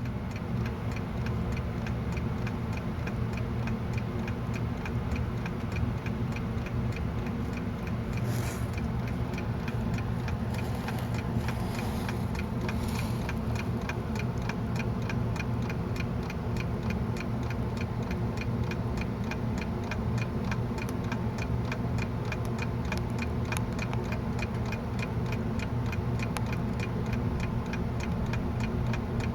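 Chairman Mao animated alarm clock's movement ticking fast and evenly, over a steady low hum.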